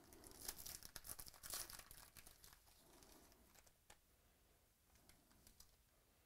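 Plastic wrapper of a trading-card pack being torn open and crinkled, loudest in the first two seconds. After that, a few faint clicks as the stack of cards is handled.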